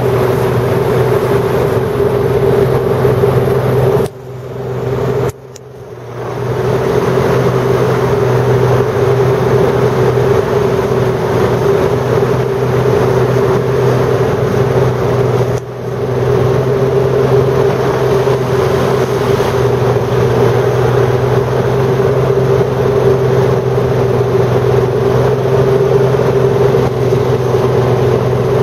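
Hovercraft engine and propeller running steadily at speed, a constant loud drone at an even pitch. The sound drops sharply about four seconds in, recovers within two seconds, and dips briefly again near sixteen seconds.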